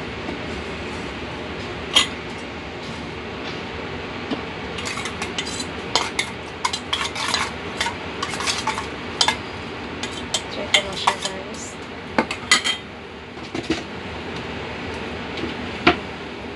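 Metal spoon clinking and scraping against a small stainless steel bowl while a marinade is stirred, with a quick run of clinks through the middle. There are a few single knocks of a kitchen knife on a wooden cutting board.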